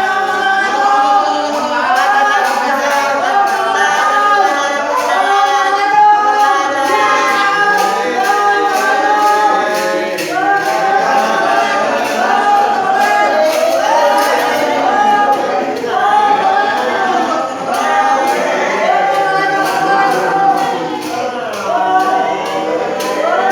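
Several voices singing together in harmony, with a light, regular tapping beat keeping time.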